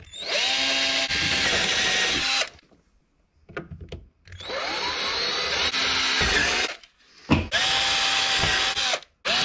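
Cordless drill boring into a plastic milk crate, running in three bursts of about two seconds each with short pauses between, and starting again right at the end.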